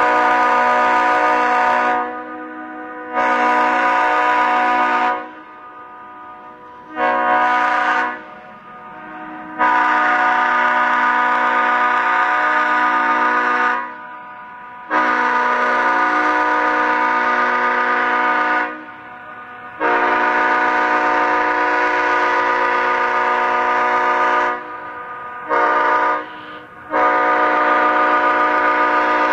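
Leslie S5T five-chime locomotive air horn blowing a chord in about eight separate blasts. Most are long, lasting several seconds each, with two short toots between them, one about seven seconds in and one near the end.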